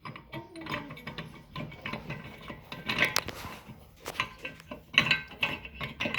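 Steel gears in a Cub Cadet 70 rear end clinking and knocking as they are turned and jiggled to bring them into mesh. The clinks come unevenly, with louder knocks about three and five seconds in.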